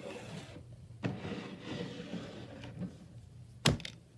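Plastic fidget toys being rummaged through and shifted about by hand: rustling and rubbing, with a knock about a second in and a sharp click near the end.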